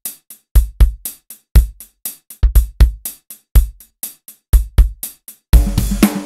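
Intro music: a drum-machine beat of deep kick drums and sharp hits, joined near the end by a full backing of bass and sustained chords.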